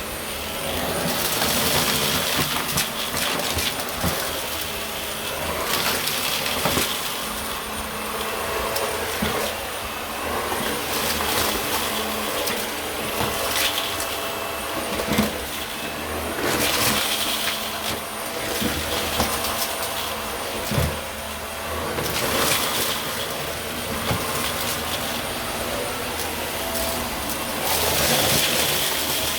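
Dyson vacuum cleaner running over carpet with a faint steady whine. Its sound swells and eases every five or six seconds as it is pushed back and forth in strokes.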